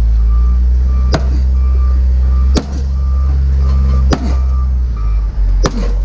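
A heavy vehicle's engine running with its reversing alarm beeping over and over. Four sharp metal strikes come at even spacing, about a second and a half apart.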